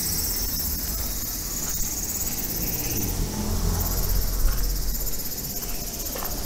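A steady, high-pitched, rapidly pulsing trill of insects, over the low rumble of small cars passing close by.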